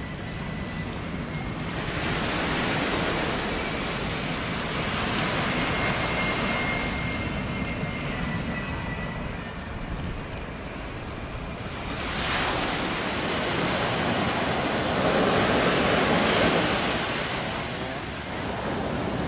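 Surf washing against a rocky seawall, with wind on the microphone, rising in two long swells; the second starts sharply about twelve seconds in. A faint steady high whine from the landing airliner's jet engines runs through the first half.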